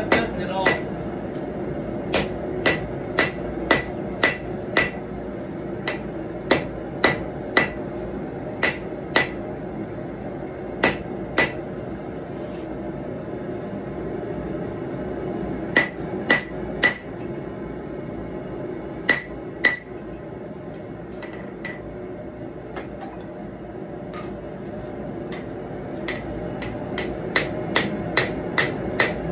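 Hand hammer striking red-hot knife steel on an anvil, forging the blade and integral guard of a large hunting knife. The blows come in short runs of about two a second, each with a brief metallic ring, separated by pauses of several seconds. The gas forge runs steadily underneath.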